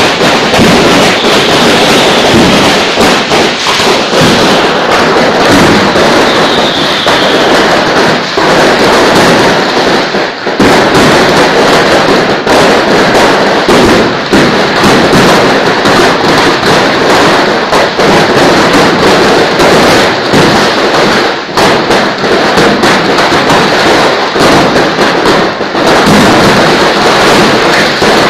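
A fireworks stall's stock, hundreds of fireworks set off all at once by accident, going off in a dense, unbroken barrage of bangs and crackling, loud throughout.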